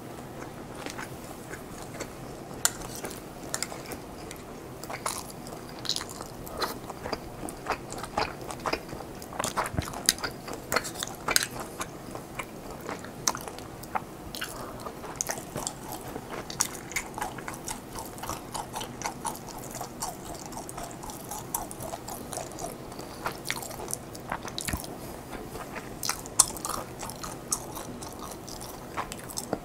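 Close-miked chewing and biting of food, a steady stream of short, irregular wet clicks and smacks from the mouth.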